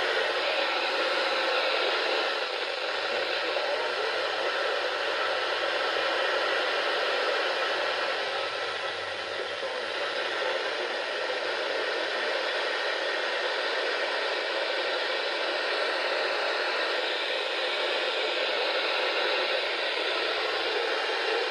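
Steady radio static from a weather-radio receiver: an even hiss with no voice coming through.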